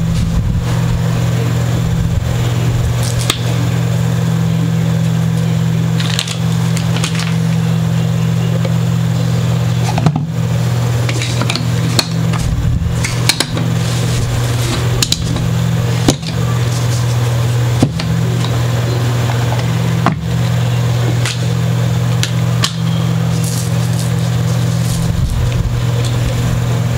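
A steady low hum, like a room fan or air conditioner, under scattered small clicks and knocks of a mandolin and parts being handled and set down on a workbench, most of them in the middle of the stretch.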